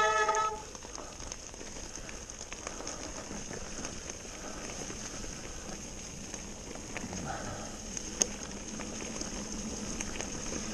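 Mountain bike tyres rolling fast over a dirt forest track strewn with dry leaves: a steady crackling rustle with small knocks and rattles from the bike. A loud pitched squeal with overtones dies away in the first half-second, and there is one sharp click about eight seconds in.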